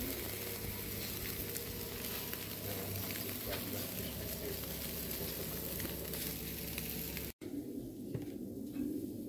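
Small çöp şiş meat skewers sizzling on a charcoal grill, a steady hiss with small crackles. It cuts off abruptly about seven seconds in, giving way to a quieter background.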